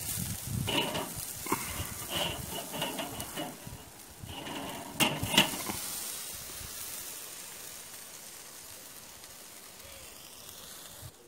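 Hinged wire grill basket of chicken kebabs and ostrich sausages being turned over on a charcoal kettle braai: clinking and scraping of the metal grids, with two sharp clanks about five seconds in. After that the meat sizzles over the hot coals as a steady hiss that slowly fades.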